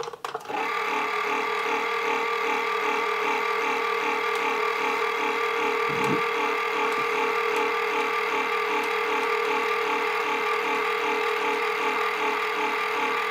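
Antenna rotator's electric motor and gear train running inside its bell-shaped housing, turning the mast clamp: a steady hum with a rhythmic throb about three times a second, starting with a click. The noise is gear whine that the owner traces to one noisy gear, made worse by the housing resonating.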